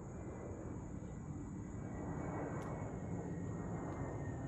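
Twin-engine jet airliner passing overhead, its engines making a steady rumble with a slowly shifting hiss that grows a little louder.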